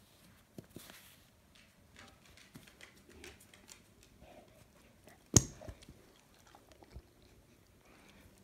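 Light scattered rustles and taps of a cat moving about in a cardboard box among plastic-wrapped chrome exhaust parts, with one sharp knock that rings briefly about five seconds in and a smaller tap near the end.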